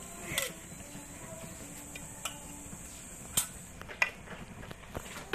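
Metal spoon knocking against a large metal pan while spaghetti is stirred, a handful of separate sharp clinks over a low background.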